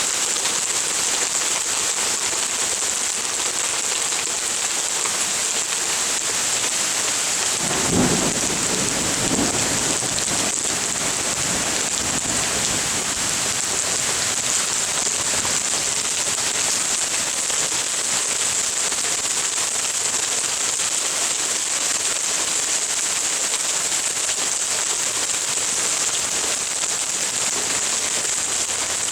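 Hail and heavy rain pelting down steadily in a cloudburst. About eight seconds in, a single clap of thunder rumbles for a couple of seconds.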